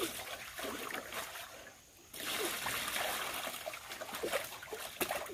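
Muddy water splashing and pouring as it is scooped up in a plastic bucket and tipped into a shallow metal tray. The splashing breaks off briefly about two seconds in, then resumes.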